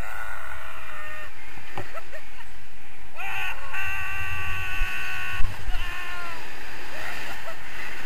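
Steady wind rushing over the microphone of a camera carried on a tandem paraglider in flight. A person's high-pitched yell rises in and is held for about two and a half seconds in the middle, with shorter cries before and after it.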